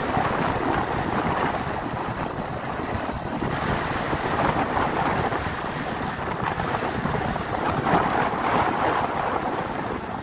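Wind buffeting the microphone of a moving vehicle, a steady gusting rush over road and engine noise.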